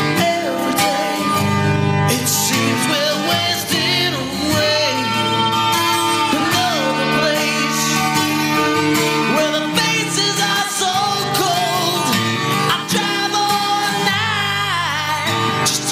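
Music: a song with a voice singing over guitar, playing without a break.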